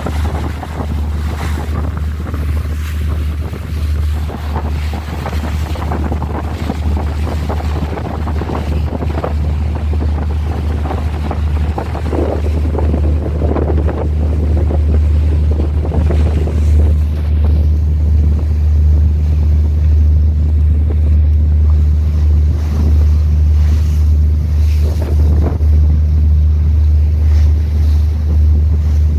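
Wind buffeting the microphone over sea and waves, with a heavy, steady low rumble underneath that gets louder about halfway through.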